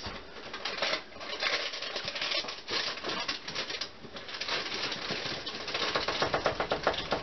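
Rustling and scooping of dry Bisquick pancake mix from its box and inner bag. Past the middle this turns into a quick, even scraping or tapping, about five strokes a second.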